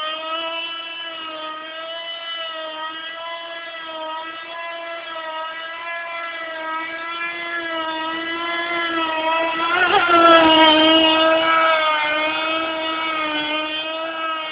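Traxxas Nitro Vee RC boat's small two-stroke nitro engine running flat out, a steady high-pitched whine that wavers slightly in pitch. It grows louder about ten seconds in, with a brief rush of noise at its loudest, then eases off a little.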